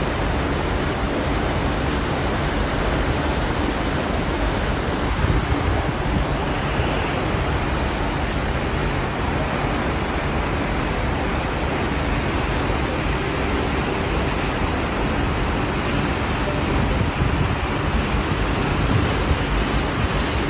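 Steady rush of water churned up by the SS Badger car ferry's propeller wash as the ship pulls away from its dock.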